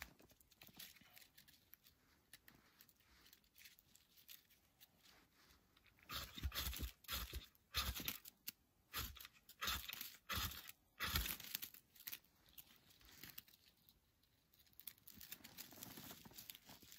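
A ferro rod struck hard against the tinder bundle: about a dozen quick, harsh scrapes over about five seconds, each throwing sparks to light the fire.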